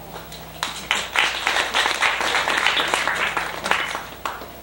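Audience applauding, starting about half a second in and dying away about four seconds in.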